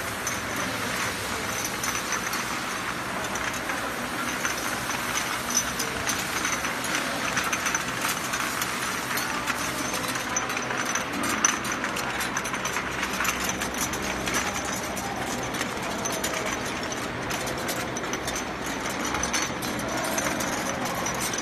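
Rotary bottle-feeding turntable running, its crowd of amber bottles jostling against each other and the stainless-steel guide rails in a steady, dense clinking rattle over the machine's running noise.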